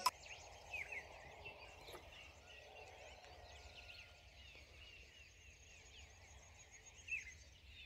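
Faint chorus of many birds chirping and calling over a low background hush, with short notes overlapping throughout and a few slightly louder calls.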